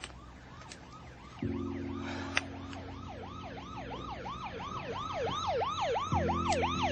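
Emergency-vehicle siren in a fast yelp, rising and falling about three to four times a second and growing louder. A steady low hum comes in about a second and a half in and swells near the end.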